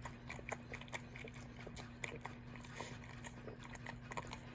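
A dog chewing food: a scatter of small clicks and crunches over a steady low hum.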